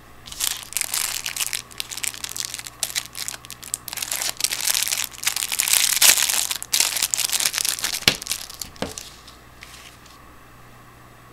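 Thin clear plastic packaging sleeve crinkling and crackling as it is handled, torn open and pulled off a makeup brush, with two knocks near the end.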